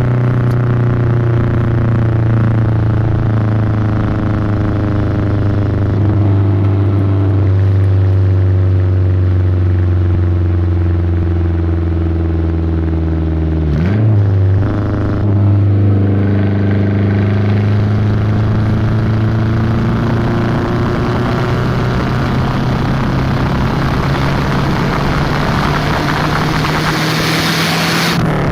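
Volvo 480 Turbo's 1.7-litre turbocharged four-cylinder engine pulling the car along. Its pitch sinks slowly for the first half, breaks briefly about halfway through as with a gear change, then climbs steadily as the car accelerates, with a hiss growing toward the end.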